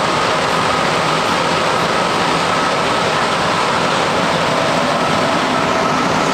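Rubber-tyred MR-63 metro car running at speed through a tunnel, heard from inside the car: a loud, steady roar of the tyres and running gear with a steady high whine over it.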